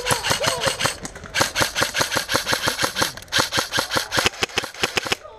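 Airsoft electric rifle firing on full auto: three long bursts of rapid, evenly spaced shots, about ten a second, with short pauses between them.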